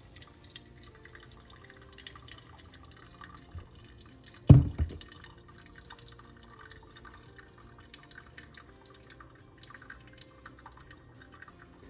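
Faint dripping and trickling of water in a Chemex pour-over coffee maker, with one low thump about four and a half seconds in.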